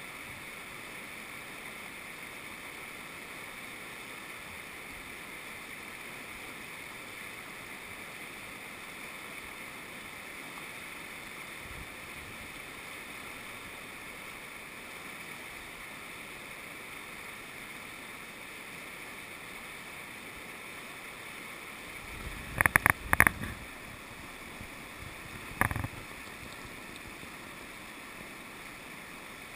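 Steady rush of a fast, rocky river's whitewater rapids. About 22 seconds in comes a quick cluster of sharp knocks, and a single knock about three seconds later.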